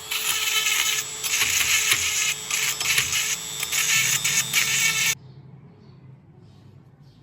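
Power tool running with a harsh, rasping whir, stopping abruptly about five seconds in, leaving only a faint low hum.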